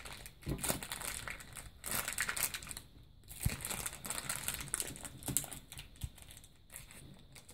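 Clear plastic bag crinkling and rustling in irregular bursts as small hands work a toy figure out of it.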